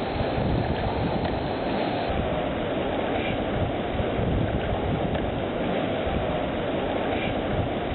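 Pool water splashing and washing as dolphins slide out onto a wet, shallow ledge and back into the water, with a steady rumble of wind on the microphone. The same few seconds of sound repeat about every four seconds.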